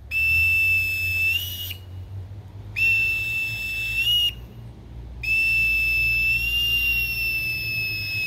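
Boatswain's pipe (bosun's call) piped in three long, steady high notes, each ending with a quick upward flick in pitch; the third note is held longest.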